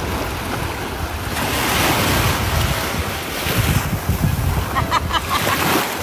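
Small sea waves washing up onto a sandy beach, the surf swelling louder through the middle, with wind buffeting the microphone.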